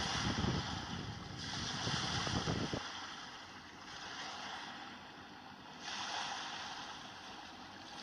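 Wind buffeting the microphone for about the first three seconds, over the steady hiss of surf breaking on a sandy beach. The surf hiss then carries on alone, changing level abruptly a few times.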